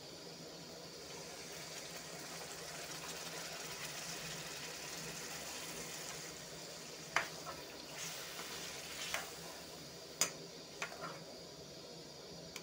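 Chicken hearts in a watery masala sizzling and simmering in a metal kadai, water just added. In the second half a steel spoon clinks against the pan a few times as the curry is stirred.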